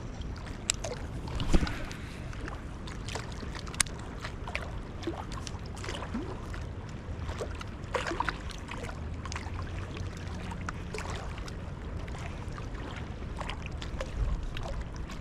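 Steady low rumble of wind and the flooded river, with scattered small clicks and ticks from handling fishing tackle and the just-landed fish.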